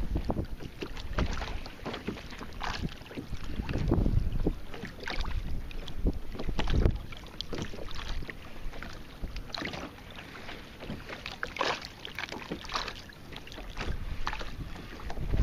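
Wind buffeting the microphone, with small waves slapping and splashing against the hull of a kayak in an irregular pattern.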